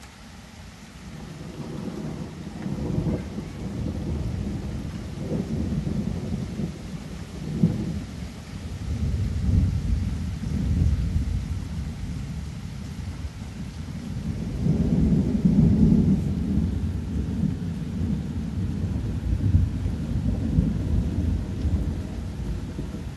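Thunder rumbling in long rolling waves over steady rain. The rumble swells in about a second in and is loudest about two-thirds of the way through.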